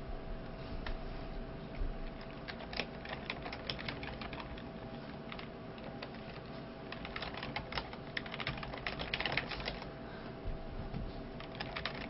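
Computer keyboard typing in uneven runs of quick keystrokes, busiest in the second half, over a faint steady hum.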